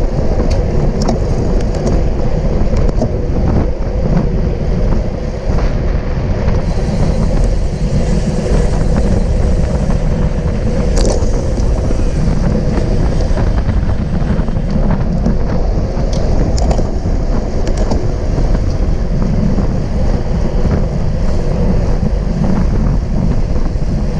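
Steady wind rushing and buffeting on a bike-mounted action camera's microphone while riding at speed, with a few faint clicks.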